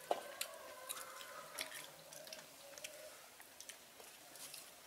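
Faint wet squishes and small scattered clicks of someone eating a meal of rice and fish curry.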